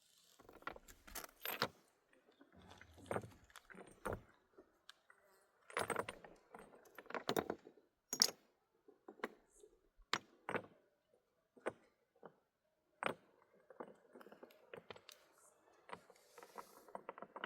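Irregular clinks and knocks of objects being handled, sharp strikes at uneven intervals with brief pauses between them.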